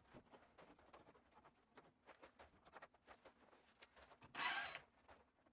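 Near silence with faint, scattered clicks, and one brief rasping noise about four seconds in.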